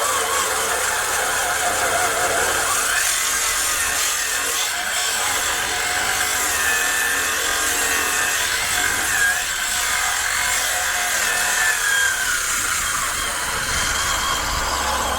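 Power tool cutting through the steel bolts that hold the metal lower keel to a wooden boat: a continuous high-pitched cutting noise whose pitch wavers as the load changes.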